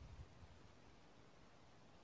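Near silence: faint background hiss, with a brief faint low rumble at the start.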